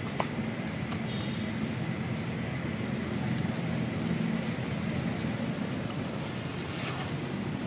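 Steady low rumble of an engine running, with a small click just after the start.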